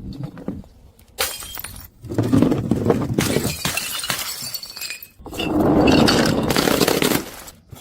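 Glass bottles breaking and shattering, several crashes of crunching, tinkling glass one after another with short gaps between.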